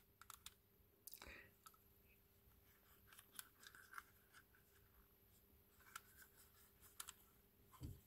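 Faint, scattered clicks and light scrapes of a white cast-resin knight-shaped twisty puzzle, a 2x2 mechanism, being turned and handled.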